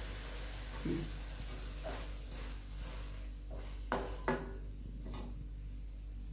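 Wooden spatula stirring and scraping carrot halwa around a metal kadai, with about five short scrapes against the pan. A faint sizzle fades out over the first few seconds, the gas having just been turned off.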